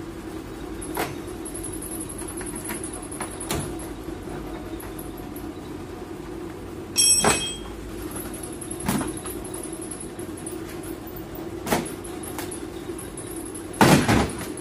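A damaged plastic rear bumper cover on a Toyota Corolla being worked loose and pulled off by hand: scattered knocks and clicks, a sharp clack with a brief ring about seven seconds in, and a loud cluster of knocks and clattering near the end as the cover comes free. A steady hum runs underneath.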